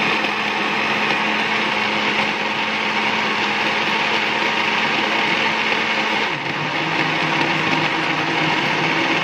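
Kelen Munoz countertop blender running steadily, blending carrots, dates and milk in its jug. Its tone drops slightly about six seconds in.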